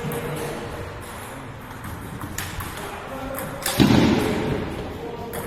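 Table tennis ball strikes: a few sharp clicks of the ball off bats and table, with a louder thump a little under four seconds in.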